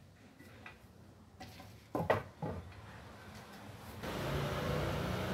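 Wooden knocks, two or three sharp ones about two seconds in, as a loose wooden leg is handled against a wooden headboard frame. From about four seconds a steady rushing noise with a low hum sets in.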